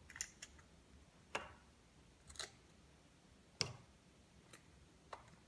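Faint, irregular taps and clicks of small square crackers being set down one by one on a paper napkin over a tabletop, the sharpest about two-thirds of the way through.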